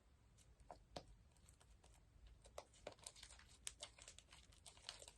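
Homemade glue-and-shaving-cream slime being squeezed and stretched by hand, giving faint, irregular crackling clicks and pops that come thicker and faster in the second half.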